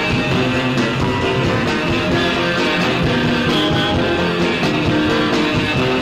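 Background music: a rock-style tune with guitar and a steady beat.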